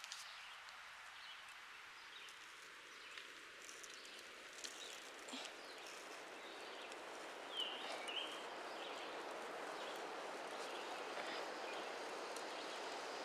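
Faint woodland ambience: a steady outdoor hiss that grows a little louder partway through, with a few small ticks and a short chirp about seven and a half seconds in.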